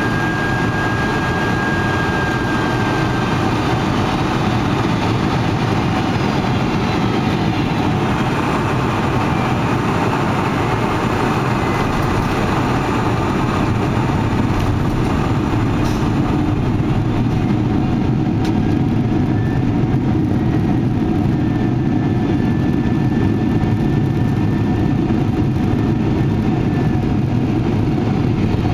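Cabin noise inside a Boeing 747 landing: a steady engine and airflow rumble through the last of the final approach, touchdown and the rollout on a wet runway, with reverse thrust on the rollout. A faint high whine fades out in the first few seconds.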